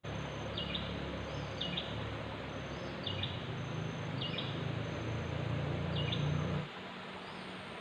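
A bird giving short, repeated calls about once every second or so, over a steady low rumble that drops away suddenly near the end.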